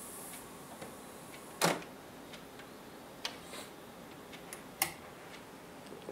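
Aurex PC-X60AD cassette deck sitting quiet after the song ends, with low background hiss and a few sharp mechanical clicks. The loudest click comes just under two seconds in and another about five seconds in, as a hand works the deck's keys.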